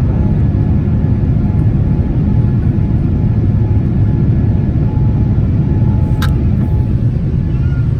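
Cabin noise of a Boeing 787-10 in the climb after takeoff: a steady, loud, low rumble of the engines and airflow heard from a seat behind the wing. A brief click about six seconds in.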